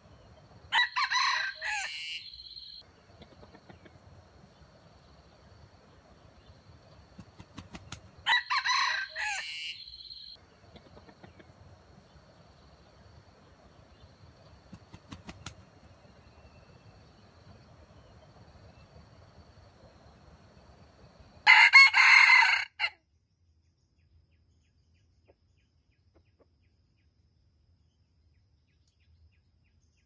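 A rooster crowing three times, about a second in, about eight seconds in and, loudest, about twenty-two seconds in, each crow lasting a second or two. A faint steady high tone runs beneath the first two crows.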